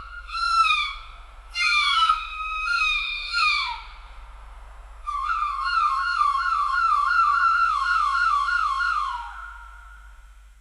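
Sci-fi cryo chamber ambience: synthesized electronic tones over a steady low hum. Short falling beeps come first, then about halfway through a warbling tone that trills three or four times a second and fades out near the end.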